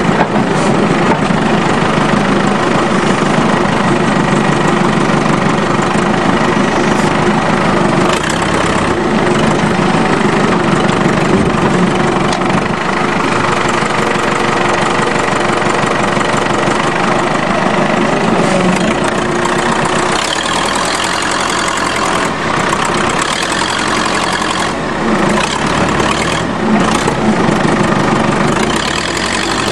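Loader tractor's engine running steadily while it lifts and pushes a car onto a trailer, with scattered knocks and clanks in the second half.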